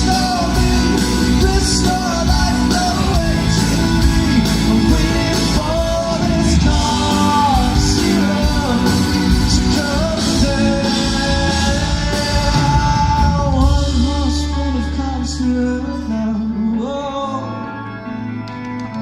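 Live band playing with a man singing lead, heard in a reverberant arena. The heavy bass and drum low end cuts out suddenly near the end, leaving a quieter, lighter passage.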